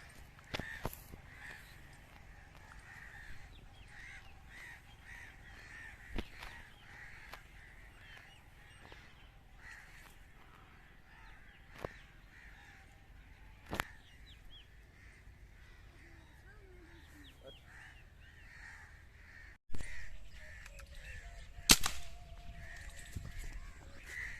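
Crows cawing over and over in short calls. A few faint sharp clicks come in between, and a loud sharp crack sounds near the end.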